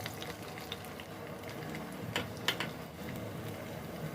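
Marinated chicken pieces sizzling as they deep-fry in hot oil in a kadai, a steady hiss, with two sharp clicks a little past halfway.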